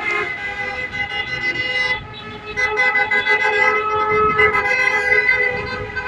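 Horns honking in long held blasts, several steady pitches overlapping, with a short drop about two seconds in before they sound again.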